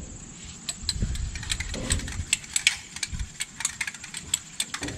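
Aerosol spray can being shaken, its mixing ball rattling in quick, irregular clicks. Steady insect chirping runs underneath.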